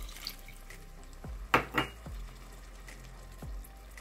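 Water poured into a pot of browned ground beef, sizzling faintly, with two sharp knocks against the pot about a second and a half in.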